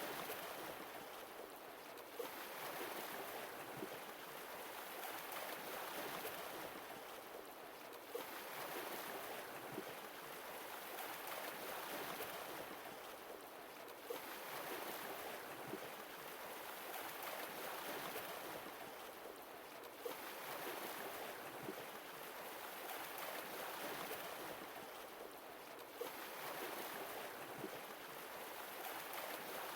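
Sea waves washing in and drawing back: a wash of surf that swells and fades about every six seconds.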